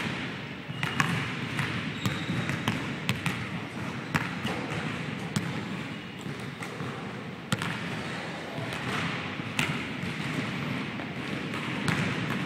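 Basketballs bouncing on a hardwood gym floor and striking the rim and backboard during shooting, heard as sharp knocks at irregular intervals over a steady background noise.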